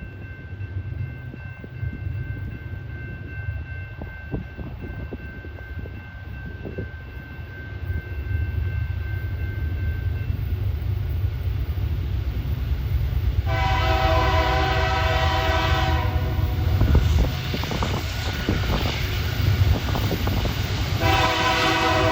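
A CSX diesel freight train approaches with a steady low engine rumble that grows louder. The locomotive's horn blows a chord for about two seconds roughly two-thirds of the way through, then sounds again near the end.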